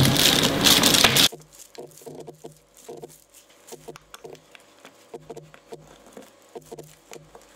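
Screwdriver backing wood screws out of a wooden cutting board to free its rubber feet: faint short squeaks and creaks recurring about once or twice a second as the screw is twisted in the wood. A loud rush of noise cuts off suddenly just over a second in.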